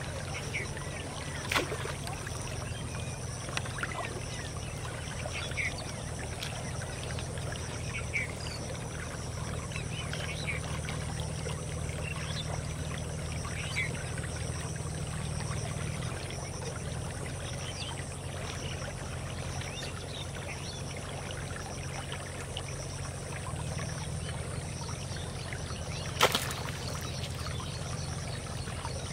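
Shallow canal stream flowing steadily, with a few faint short chirps. A sharp click about a second and a half in and a louder one near the end.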